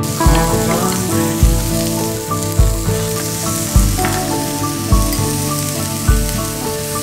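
Mellow background music with a slow, steady beat, a low drum thump about every second, under a layer of crackling hiss that sets in at the start.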